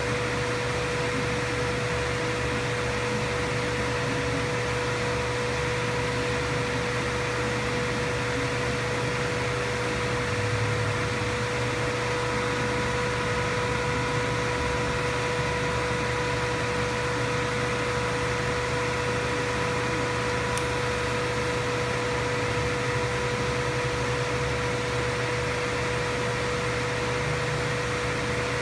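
TIG welding on stainless pipe: a steady electrical hum from the Miller welder and arc, with a constant tone, a fainter higher tone joining about twelve seconds in, and a single faint click about twenty seconds in.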